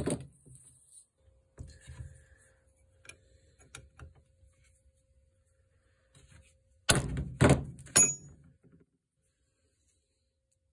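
Hammer blows on a chisel held against the end of a bolt on a pair of metal shears, nicking the thread so the nut can't work off on its own: a blow right at the start, a few light taps, then three sharp blows about seven to eight seconds in, the last ringing metallically.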